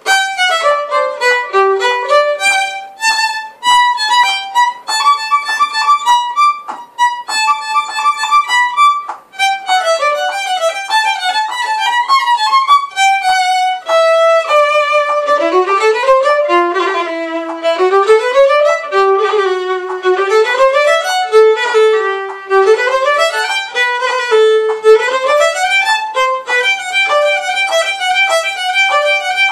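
Solo violin played with the bow: a few phrases broken by short pauses, then from about ten seconds in, fast running passages that climb and fall.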